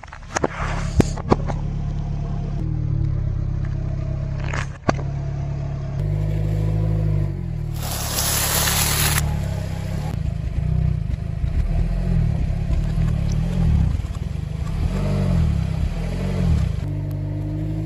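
A car's engine running at low speed as its tyre rolls over and crushes objects on asphalt, with a few sharp cracks about a second in and again near five seconds, and a loud crunch of crisp wafers breaking under the tyre about eight seconds in.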